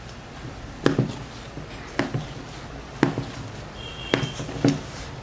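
Whole wheat bread dough being kneaded by hand in a stainless steel bowl: short dull knocks about once a second as the dough is pushed down against the bowl.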